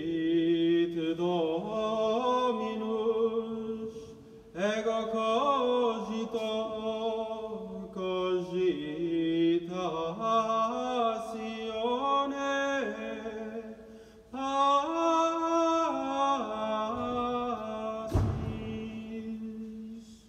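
Gregorian chant sung in Latin, unaccompanied melodic phrases separated by short pauses for breath. There is a brief low thump near the end.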